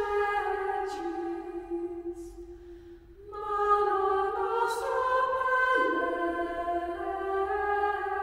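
Background choral music: voices singing slow, long-held notes that step from pitch to pitch, dropping away briefly about three seconds in before the next phrase.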